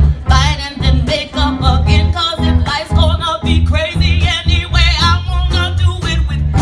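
A woman singing into a microphone through a PA, with strong vibrato on held notes, over backing music with a steady bass line and a regular drum beat.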